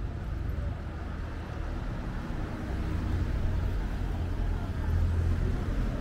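Road traffic: cars passing with a steady low rumble that swells a little near the end.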